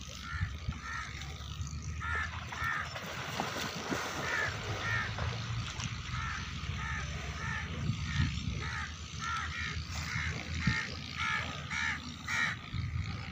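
A bird calling over and over in short harsh notes, two or three a second, over a steady low rumble.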